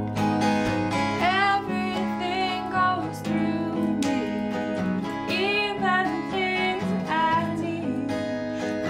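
A woman singing to her own strummed steel-string acoustic guitar. The voice comes in about a second in, in several phrases with short gaps, over steady strummed chords.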